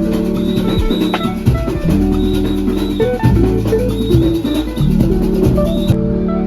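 Music with a drum kit beating over a bass line and held notes.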